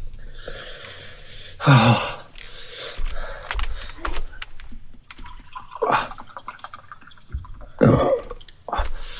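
A man's mouth and throat noises while eating: breathy hissing and several short throaty sounds like a burp or throat-clearing, his reaction to food he calls far too spicy.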